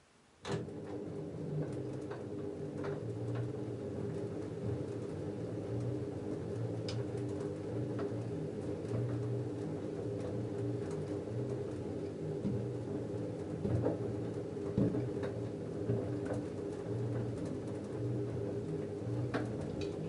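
LG F10A8HDS5 front-loading washing machine's direct-drive motor turning the drum through a wash tumble of wet denim: a steady low hum with a pulsing swell, starting abruptly about half a second in, with scattered clicks and knocks from the tumbling load and water in the drum.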